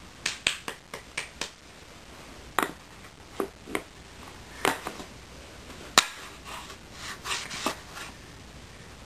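Puzzle pieces clicking and knocking against a puzzle board as they are handled and pushed into place: a dozen or so short, sharp taps at irregular intervals, in small clusters.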